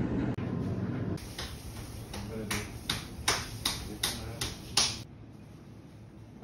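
A quick run of about a dozen sharp taps or clicks, roughly three a second, after a second of steady background noise.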